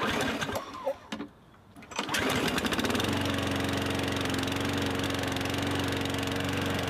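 Gasoline walk-behind lawn mower engine running steadily at a constant speed, coming in about two seconds in after a short quieter stretch with a few knocks.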